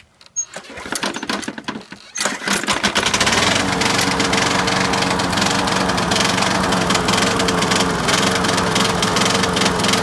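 Craftsman walk-behind lawn mower's small gasoline engine, its carburetor just repaired, catching about two seconds in after some rattling clicks, then running steadily at a constant speed.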